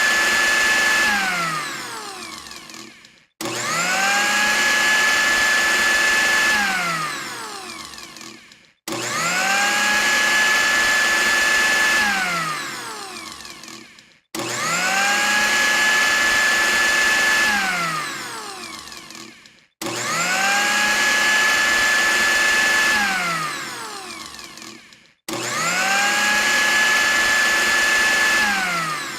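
Blender motor switched on, rising quickly to a steady whine, running for about three seconds, then switched off and spinning down with a falling pitch. The same on-off cycle repeats about every five and a half seconds.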